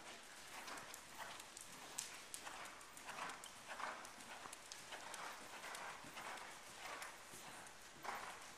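Hoofbeats of a Dutch Warmblood gelding cantering on an indoor arena's sand footing, a faint steady rhythm of about two soft strikes a second.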